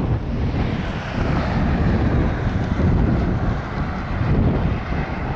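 Wind buffeting the microphone in an irregular low rumble, over a steady hiss of road traffic.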